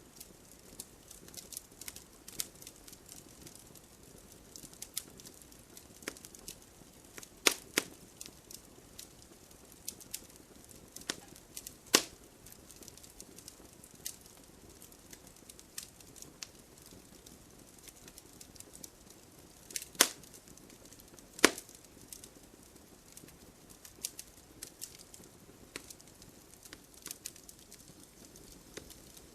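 Wood fire burning in a fireplace, crackling steadily with many small snaps over a soft hiss of flame. A handful of louder pops stand out from the logs, two of them close together about two thirds of the way through.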